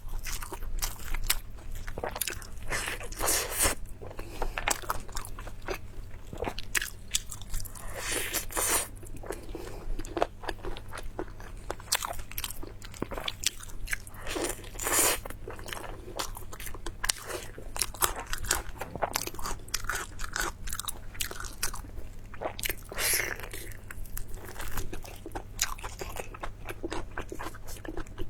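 A person eating close to the microphone: steady biting and chewing with many quick mouth clicks, and louder bites every few seconds.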